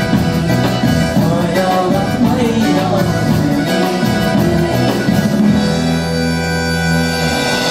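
Live band with a female singer performing a song. About two-thirds of the way in, the band holds a sustained final chord for about two seconds, and it stops just before the end.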